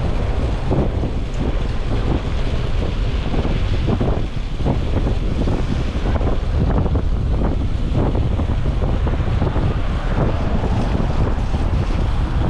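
Wind buffeting the microphone of a camera moving along with cyclists, a loud, steady rumble with irregular gusts.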